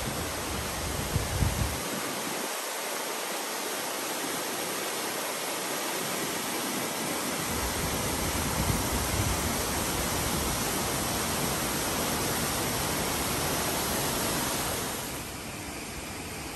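Steady rushing hiss of Silverthread Falls, a thin waterfall dropping about 80 feet in a narrow stream. Near the end it drops suddenly to a fainter hiss.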